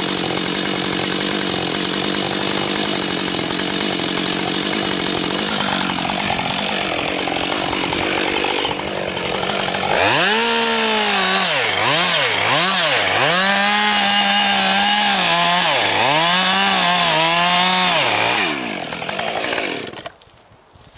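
Chainsaw running at a steady pitch, then from about halfway revved and cutting into a standing spruce trunk, the felling cut. Its pitch dips and recovers again and again as the chain bogs in the wood. It drops off and stops about a second before the end.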